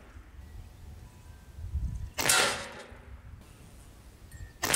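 Crosman ICON PCP air rifle firing twice, about two and a half seconds apart, the second shot near the end; each shot is a sharp report with a short tail.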